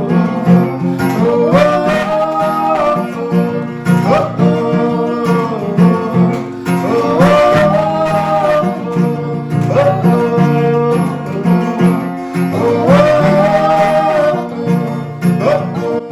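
Guitar strummed in a steady rhythm under a wordless sung melody, long held 'oh' notes that swell and fall between lines of a worship song.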